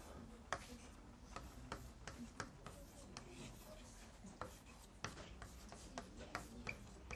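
Chalk writing on a blackboard: faint, irregular taps and short scrapes as each stroke of a formula is drawn.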